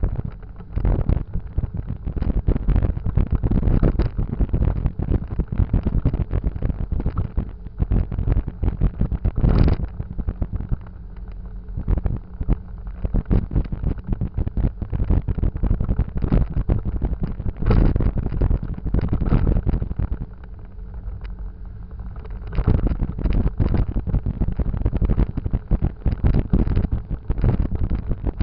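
Wind buffeting the microphone of a rear-facing camera on a moving motorcycle, with the motorcycle's engine running underneath. The buffeting eases for a stretch in the middle, where a steady engine hum comes through more clearly.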